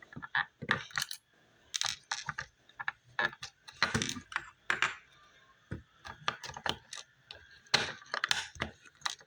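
Plastic Lego pieces clicking and clattering as they are handled, in a string of irregular sharp clicks.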